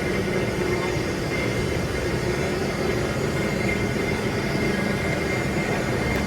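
Steady rumble and hiss of a train running, with a few faint steady tones through it and no change in level.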